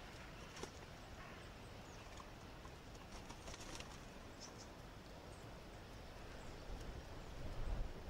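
Faint, scattered taps and clicks of common wood pigeons pecking and stepping on a wooden seed tray, with a cluster of them around the middle as one pigeon flaps its wings at the other. A louder low rumble comes near the end.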